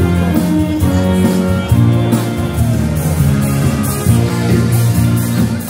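Live big band playing, saxophones and brass holding chords over a bass line and a steady beat.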